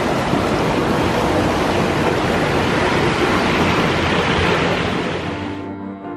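Loud, steady rushing water that cuts off abruptly near the end, leaving background music.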